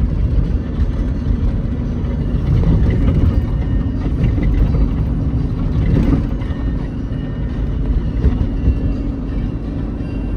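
Honda CR-V's 2.4-litre K24A1 four-cylinder engine and road noise heard from inside the cabin while driving, a steady low rumble, with a brief thump about six seconds in.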